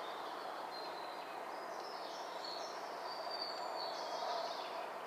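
Woodland birdsong: thin, high song phrases from small birds over a steady background hiss, busiest and loudest around the middle and latter part.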